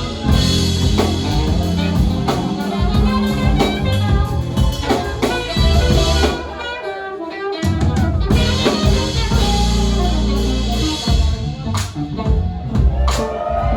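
Live jazz band playing: drum kit with rimshots over bass, keyboards and saxophone. The bass and low end drop out for about a second halfway through, then the full band comes back in.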